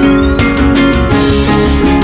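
Background music led by plucked acoustic guitar, with a steady strummed rhythm.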